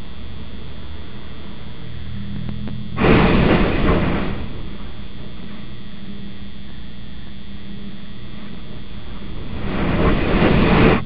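Box truck's cargo box crashing into the overhead beam of a railroad bridge too low for it, a loud scraping crunch that starts suddenly about three seconds in and lasts about a second. Near the end a second scraping crunch builds as the truck reverses out from under the beam. Under both runs a steady hiss and hum.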